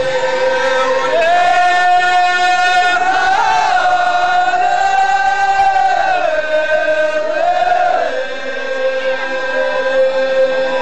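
Ahwach troupe of men chanting together in unison, drawing out long held notes. The pitch steps up about a second in and drops back down later.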